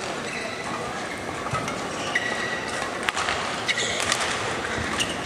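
Badminton rally: a few sharp racket strikes on the shuttlecock and short squeaks of players' shoes on the court mat, over a steady hall murmur.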